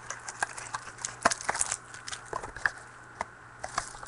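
Trading card pack wrapper and cards being handled: a run of small, irregular crinkles and clicks as a pack is torn open.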